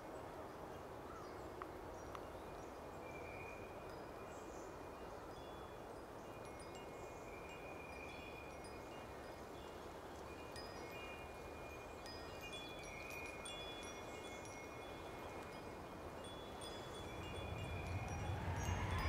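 Soft, scattered high chime tones over a steady faint hiss, with a swell rising in pitch and growing louder near the end.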